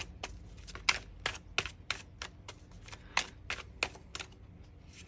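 Tarot cards being shuffled and handled: a quick, uneven run of light, sharp clicks, about three or four a second.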